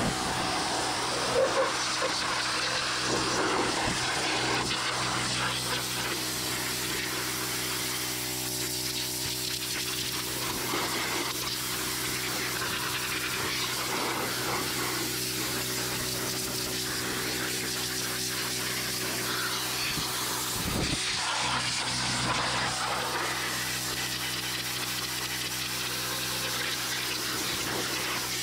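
Pressure washer running steadily, its wand's jet of water spraying against the trailer's metal body, with the machine's steady hum underneath.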